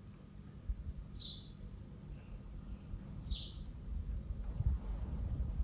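A bird repeating a short, high, falling chirp twice, about two seconds apart, over a low rumble with a few dull thumps near the end.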